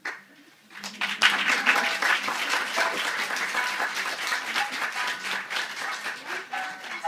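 Audience applauding, breaking out about a second in and continuing steadily.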